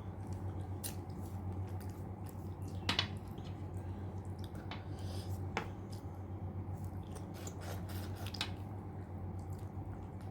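Close-up eating sounds: chewing and swallowing a mouthful of rice and mutton curry, with irregular wet mouth clicks and smacks, the sharpest about three seconds in. A steady low hum runs underneath.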